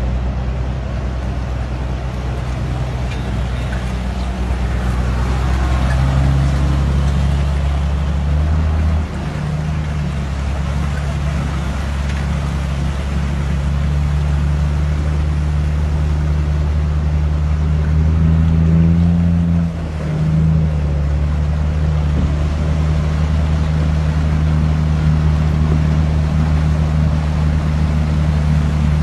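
Motor vehicle engine running steadily with a low hum, stepping in pitch about nine seconds in and again around twenty seconds in, as when changing gear while driving.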